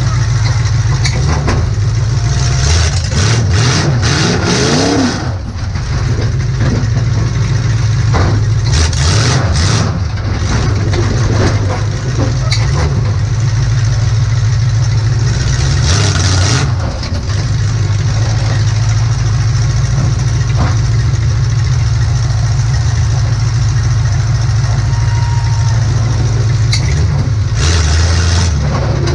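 Demolition derby car's engine running and revving, heard from inside the car, with a rising rev a few seconds in. Several loud bursts of noise break through the engine sound at intervals, including one about halfway and one near the end.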